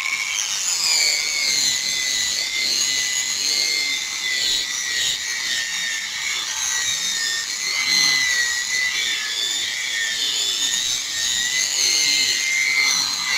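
Small handheld power sander running at speed with a high, wavering whine, its sandpaper pad working over a wet plastic headlight lens: the wet-sanding stage of a headlight restoration.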